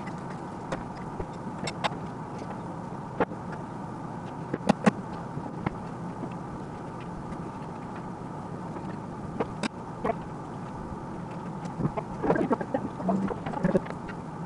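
Scattered clicks and knocks from hands and tools working on an e-bike's front hub-motor wheel, with a denser run of clatter near the end, over a steady hiss and faint hum.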